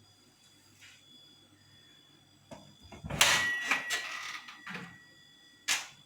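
Household objects being handled and knocked together in a clatter, one of them ringing briefly, then a single sharp knock near the end.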